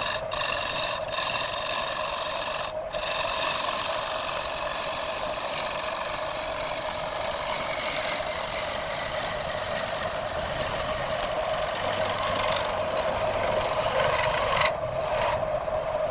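Wood lathe running with a steady whine while a tool rasps against the spinning wood, with a brief break about three seconds in.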